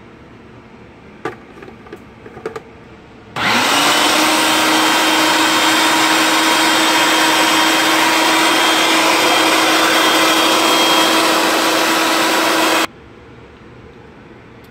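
Electric food processor chopping a bowl of sautéed mushrooms, peppers, kale and walnuts. After a few light clicks, the motor starts about three seconds in, its hum rising quickly to pitch. It runs steadily for about nine seconds, then stops abruptly.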